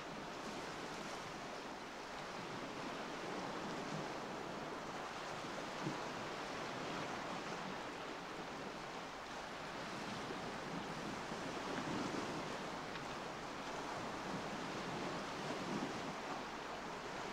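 Recorded ocean surf: a steady wash of waves that swells and eases every few seconds, the sea ambience of a dubbed music track.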